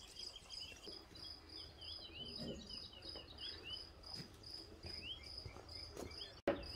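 A cricket chirping steadily in high, even pulses, about four a second, with short faint chirps now and then in the first half. Near the end the sound cuts out for a moment and comes back with a click.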